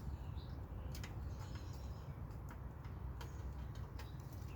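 Box fan running with a steady low hum, with irregular sharp clicks about once a second over it.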